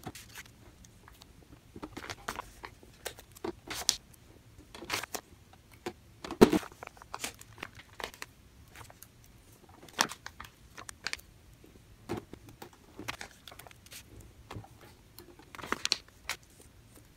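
Paper sticker sheet crinkling and crackling in the hands as stickers are peeled off their backing, in scattered short rustles and clicks. One louder knock about six seconds in.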